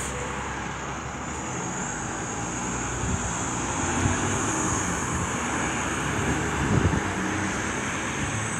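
Distant jet airliner overhead: a steady, even rumble that swells a little a few seconds in, with a thin steady high whine above it.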